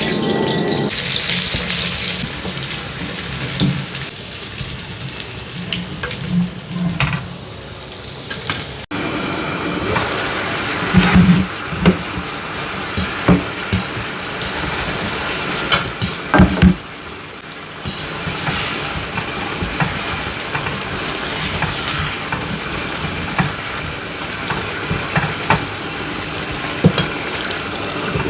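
Kitchen cooking sounds: a steady hiss of water or frying, with scattered clinks and knocks of utensils. There is a sudden break about nine seconds in.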